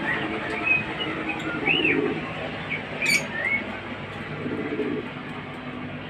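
Pet lovebirds chirping: short, high calls and a few arched, up-and-down notes. A sharp click comes about three seconds in.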